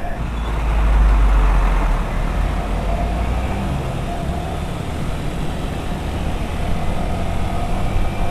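Yamaha R15 V3's 155 cc single-cylinder engine running on the move, mixed with low wind rumble on the microphone that swells for a second or two near the start.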